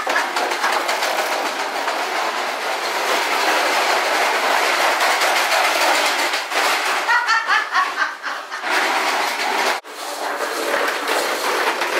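A plastic toy push lawn mower rolling over a hardwood floor, its wheels and clicking mechanism making a rapid, continuous clatter that stops briefly near the end.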